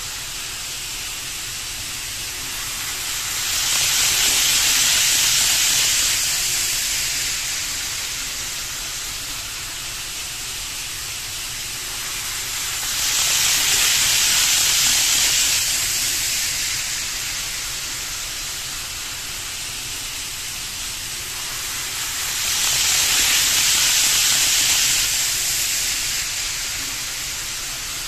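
KATO N-gauge 500 series Shinkansen model train running on its track, making a steady rushing hiss. The hiss swells three times, each for about three seconds, as the train passes close by.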